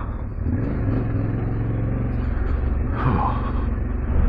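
Yamaha Ténéré 700's parallel-twin engine running steadily while the bike climbs an off-road hill, heard as a low drone with some noise over it.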